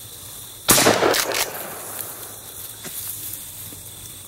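A single shotgun shot fired at mourning doves in flight, about a second in: one sharp blast with a short ringing tail.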